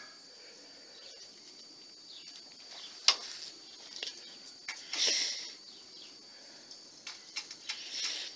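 Pigeons pecking corn from a wooden trough feeder and the loft floor: scattered sharp taps, one loud tap about three seconds in, and a short rustling burst a couple of seconds later. A steady high-pitched tone runs underneath.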